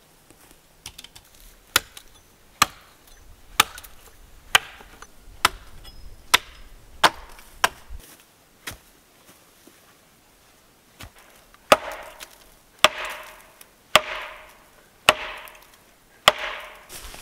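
Axe chopping into a slender tree trunk: a run of sharp blows about one a second, a pause of a few seconds, then five louder blows, each with a short ringing tail.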